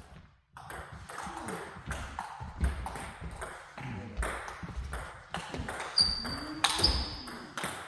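Table tennis balls clicking off bats and tables in quick rallies on two tables at once, irregular sharp ticks overlapping. Two short high squeaks come about six and seven seconds in.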